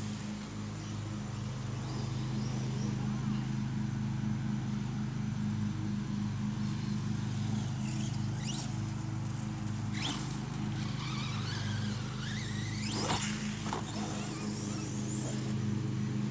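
Brushless electric motor of a Redcat Volcano EPX Pro RC monster truck whining up in pitch in short bursts as it accelerates across grass, about 8, 10 and 13 seconds in. A steady low hum runs underneath.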